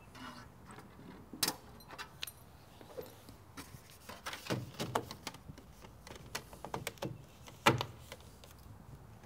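Thin coated-metal step flashing being handled and pressed into place by hand against a wall and over asphalt shingles: scattered light clicks, taps and rattles of sheet metal, with a sharper knock about one and a half seconds in and the loudest near the end.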